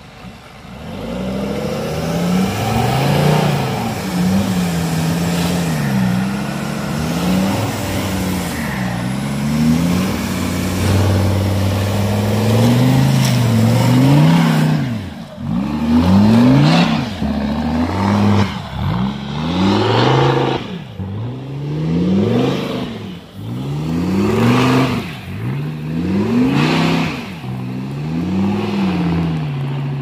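Off-road SUV's engine revving hard under load. For the first half the pitch is held high and wavers. From about halfway it rises and falls over and over, roughly every two seconds.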